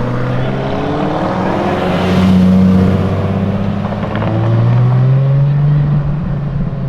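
Ferrari F12 Berlinetta's naturally aspirated V12 engine under throttle, its pitch rising twice, loudest about two seconds in and again about five seconds in.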